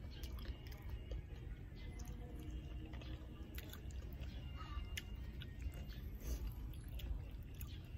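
A person chewing bulalo beef and rice, mouth closed and close to the microphone, with many small soft clicks, over a steady low rumble.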